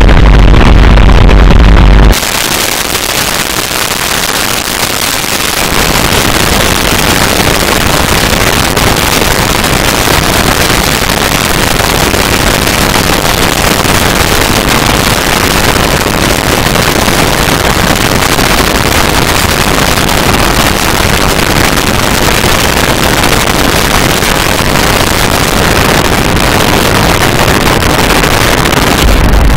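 Harsh electronic noise, loud and dense across the whole range with no clear notes. A deep bass layer cuts out abruptly about two seconds in, and the noise thickens again at about five seconds and then holds steady.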